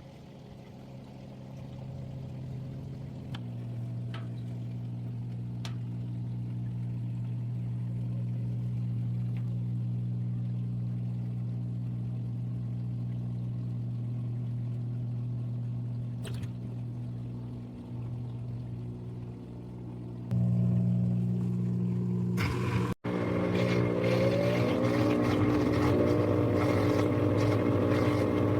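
Washing machine running with a steady low motor hum. About twenty seconds in it gets louder, and water starts rushing in over the hum.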